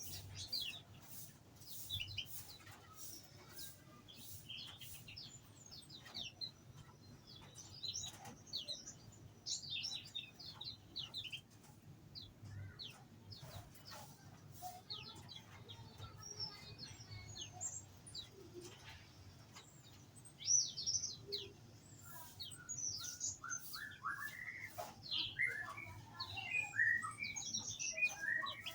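Many small aviary birds chirping and twittering in short, quick, high notes that overlap. The chirping grows busier over the last several seconds.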